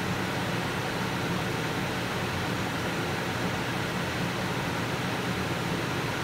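Steady, even hiss of room background noise with a low hum underneath, unchanging throughout; no crackle from the smouldering wooden crib.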